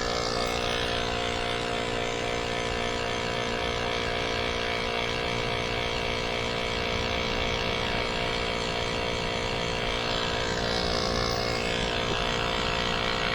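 Small electric tyre pump running steadily as it inflates a bicycle inner tube.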